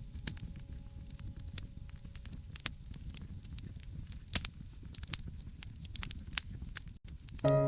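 Wood fire crackling and popping in irregular sharp clicks over a low, steady rumble of flames. Soft music with held notes comes in near the end.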